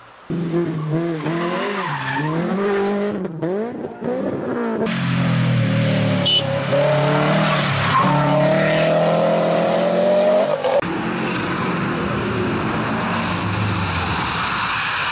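Rally cars driven hard, one after another: the engines rev up and drop back sharply with the throttle and gear changes, with tyre noise as the cars slide. The sound changes abruptly twice as one car gives way to the next.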